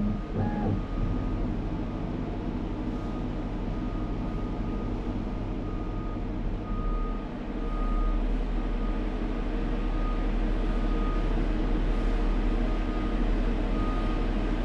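CNC machine running with a steady mechanical hum and a faint high tone that comes and goes; the low part of the hum shifts about seven seconds in. The machine is homing its axes to their reference position.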